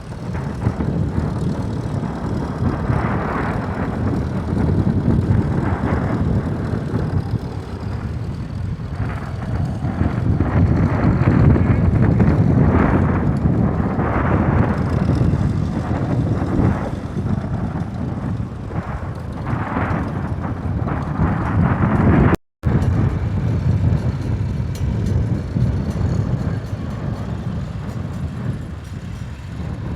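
Tractor engine running steadily as it works the field, swelling and easing every few seconds. The sound cuts out for a moment about two thirds of the way through.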